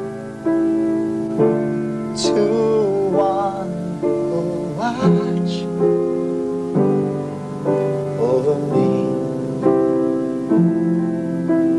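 Yamaha grand piano played in slow, sustained chords, a new chord struck about once a second.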